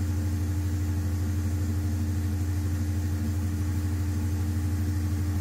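Large natural-gas generator engine running steadily, a constant low drone with a steady hum above it.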